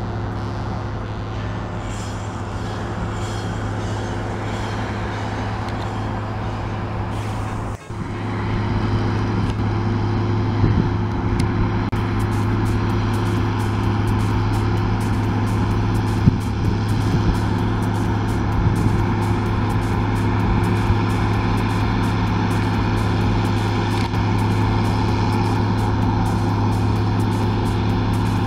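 Steady drone of New Holland CR9080 and CR9090 combine harvesters running, engines and threshing machinery under load harvesting rapeseed, with a brief drop about eight seconds in.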